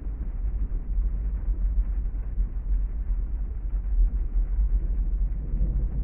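Steady deep rumble under a muffled hiss of rain, heard from inside a car's cabin.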